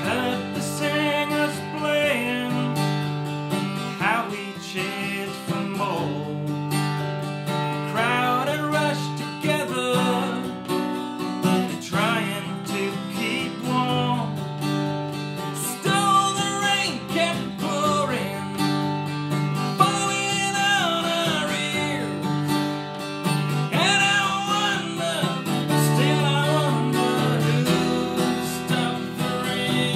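Steel-string dreadnought acoustic guitar strummed in a steady rhythm, with a man singing over it.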